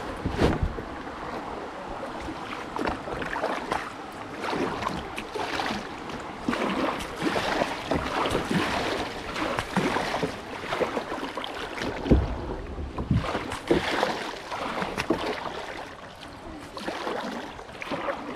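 Kayak paddling: a double-bladed paddle dipping and splashing with irregular strokes, over rushing creek water, with some wind on the microphone. A single thump about two-thirds of the way through.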